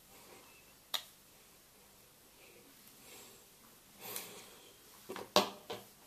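A USB plug clicking into a white wall charger, one sharp plastic click about a second in. Later, soft handling noise and a few light clicks as the flat rubbery charging cable is unwound.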